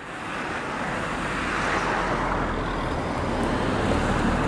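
A car approaching on the road, its tyre and road noise growing steadily louder.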